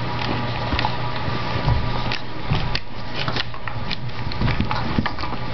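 Puppy's claws scratching and clicking on a tile floor as she paws under a door for a treat: many short, irregular scrapes and taps over a steady low hum.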